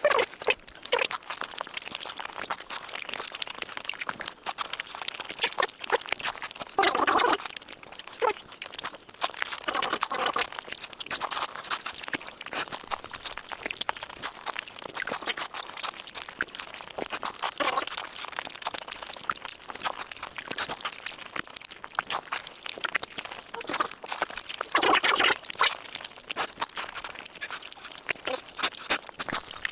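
Close-miked eating: steady chewing and crunching of food, with dense crackling clicks and a few louder bites.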